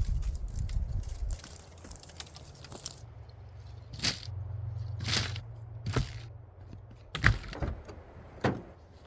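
Wind rumbling on the microphone, then a handful of separate knocks and clunks, the loudest about seven seconds in, as of gear being handled or a car door or hatch being moved.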